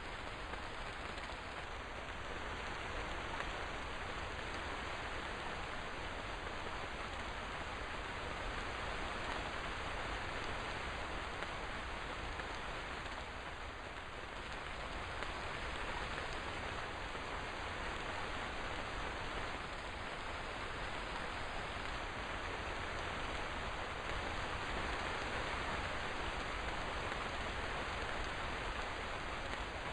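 Steady rainfall, an even hiss of rain on surfaces that swells and eases slightly.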